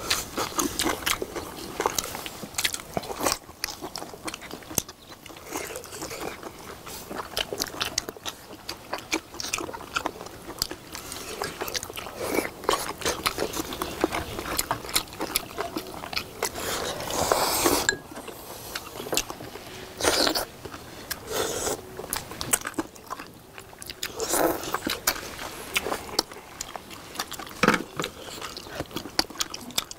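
People chewing and biting close to the microphone while eating braised beef short ribs (LA galbi-jjim) and side dishes, with crunching and many short clicks throughout.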